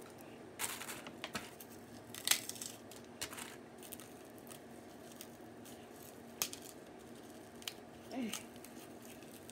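Hands kneading ground turkey meatloaf mixture in a bowl: soft, scattered squishes and clicks over a faint steady room hum.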